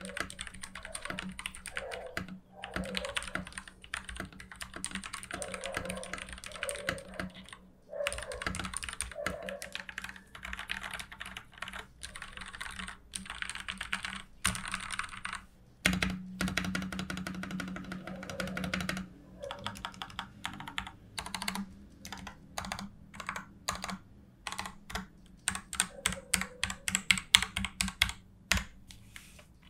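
TM680 mechanical keyboard with lubed Gateron Yellow linear switches being typed on: fast runs of keystrokes broken by short pauses, a heavier single thunk about halfway through, and slower, separate key presses near the end.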